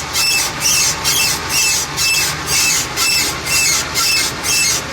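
Universal joint on a 2007 Chevy Express van squeaking rhythmically, a high chirp repeating about twice a second: the joint is going bad.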